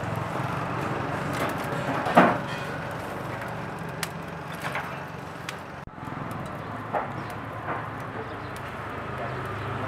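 Steady outdoor street background with traffic and a constant low hum. A few short sharp sounds break through, the loudest about two seconds in.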